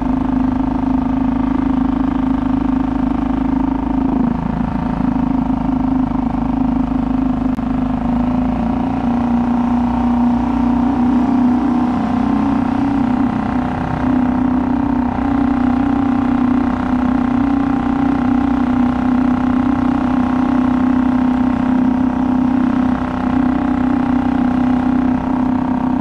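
A kayak's small motor running steadily under way, with a constant engine tone. Its pitch sags slightly about ten seconds in and then comes back up.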